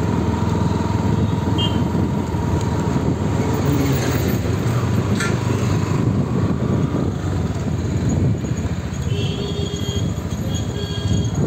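Bajaj Pulsar NS160's single-cylinder engine running while riding in traffic, heard from the rider's own bike with wind noise over the microphone.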